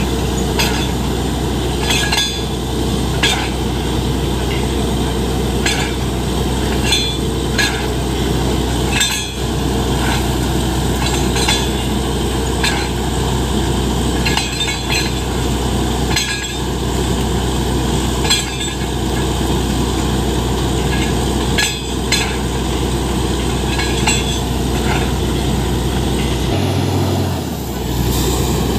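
Truck-mounted borewell drilling rig with an ELGi air compressor running at work: a steady heavy drone from its engine and compressor, with irregular metallic clinks and knocks from the drill rods and rig. The low drone dips briefly near the end.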